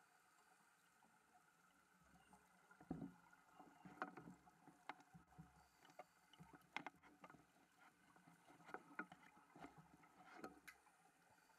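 Faint underwater clicks and knocks, a scattered cluster of them from about three seconds in until near the end, over a steady faint hum.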